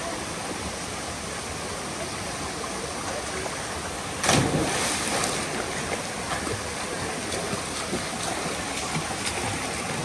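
Waterfall rushing steadily, with a sudden loud splash about four seconds in.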